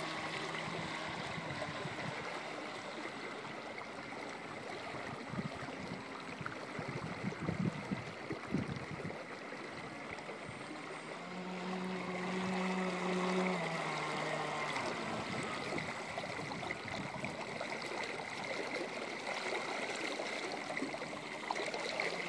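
Small waves lapping and sloshing at the water's edge. Under them is a faint motor hum that rises in pitch for a few seconds past the middle and then drops back. There are a few irregular low bumps before the middle.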